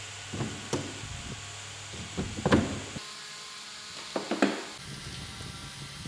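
Clicks and knocks of hands working on wiring and a plastic connector inside a wooden car body. They come in three short clusters, the loudest about two and a half seconds in.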